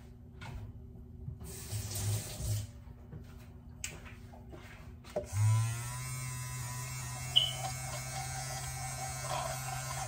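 A few brief handling noises, then a handheld battery milk frother switches on about five seconds in and whirs steadily as it mixes coffee and creamer in the cup.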